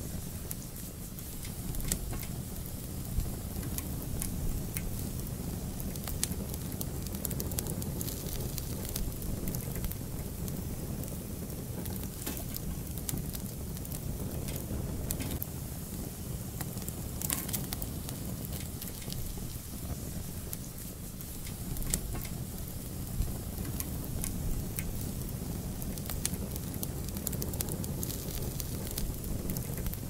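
Wood fire burning in a fireplace: a steady low rumble of flames with scattered sharp crackles and pops, most frequent a little past halfway.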